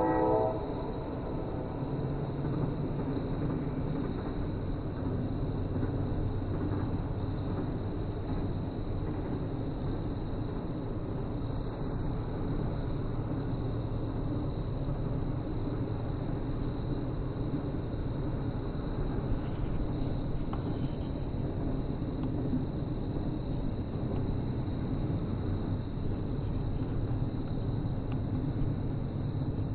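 Steady, high-pitched insect chirring, like crickets, over a low rumbling background. The last of a train horn cuts off about half a second in.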